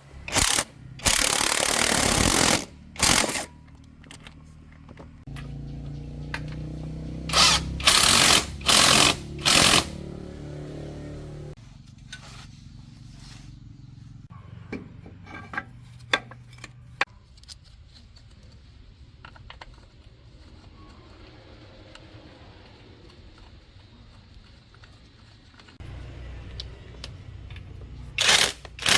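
Workshop power-tool noise: loud bursts lasting a second or so each, with a low machine hum under them for several seconds. Scattered clicks follow near the middle.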